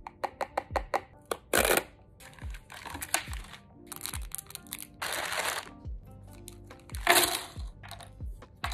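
Paper box flaps clicking open, then a cellophane bag of cardboard jigsaw puzzle pieces being torn and crinkled in several short bursts, over background music with a steady deep beat. The loose pieces are spread across the table.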